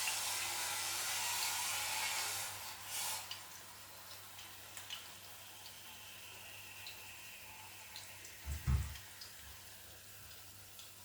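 Sausages frying in a little cooking oil over low heat: a steady sizzling hiss, louder for the first couple of seconds and then softer, with scattered small pops and one low thump about three-quarters of the way through.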